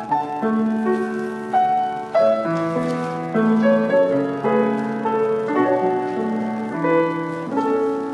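Solo grand piano playing slow, sustained chords, with a new chord or note struck about once a second and left to ring.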